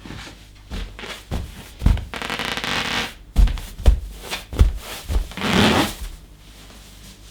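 Rubber balloon being stomped on and squeezed: several dull thumps, with two longer rubbery squeaks, one about two seconds in and one near six seconds.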